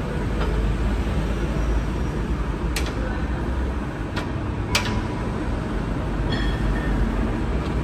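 Mazak engine lathe running with its thread-cutting feed engaged, the leadscrew driving the carriage: a steady mechanical hum and rumble, with a few sharp clicks about three and five seconds in.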